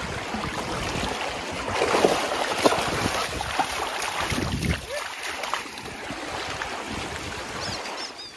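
Wind buffeting the microphone over small waves lapping at the shore, with choppy splashing as a dog wades through shallow water, loudest a couple of seconds in.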